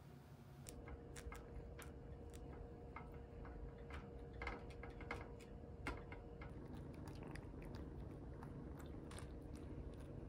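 Irregular small clicks and taps from a Minuet kitten playing with a toy in its wire cage, then chewing its food with light crunches.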